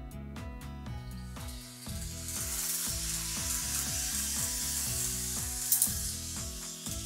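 Background music, with a steady hissing rolling noise of N gauge model trains running on the track from about a second and a half in until just before the end. A sharp click comes near the end.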